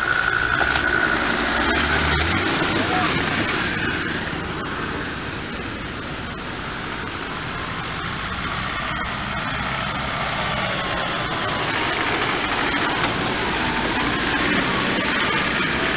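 A 4x4 off-roader's engine running at low speed as it pushes through a reed bed and scrub, with a steady rustle of vegetation over it.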